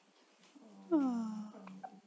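A one-week-old baby's single short squeaky vocal sound about a second in, sharp at the start and falling in pitch before trailing off.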